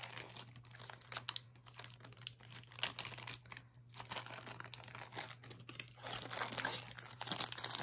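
Packaging crinkling and rustling in irregular bursts as it is handled, over a faint steady low hum.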